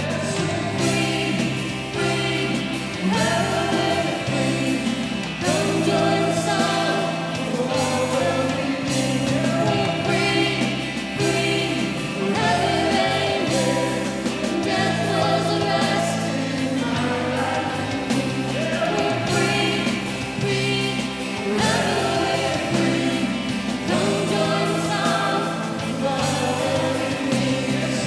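Congregational worship music: voices singing together over a band, with sustained chords throughout.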